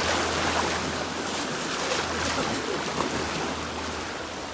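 Rushing river rapids churning and splashing close to the microphone around an inner tube, slowly getting quieter.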